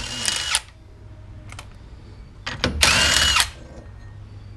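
Cordless power driver with a socket spinning off the nuts that hold a bolt-on wheel hub extension. It runs in two short bursts about two and a half seconds apart, each with a high motor whine.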